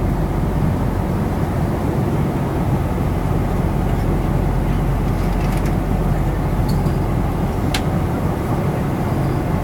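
Steady roar of a jet airliner's cabin in flight: engine and airflow noise with a deep hum, unchanging throughout. A few faint clicks come through in the second half.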